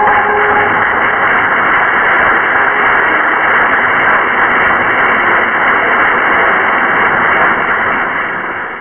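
Strong wind blowing over snow, heard as a loud, steady rushing noise on the film's microphone.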